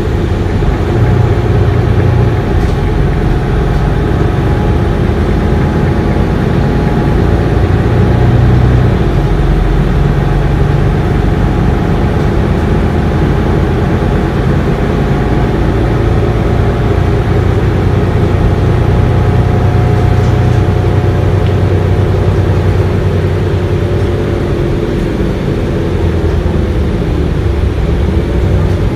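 Mercedes-Benz Citaro city bus running, heard from inside the passenger cabin near the rear-mounted diesel engine: a steady low engine hum with road and cabin noise.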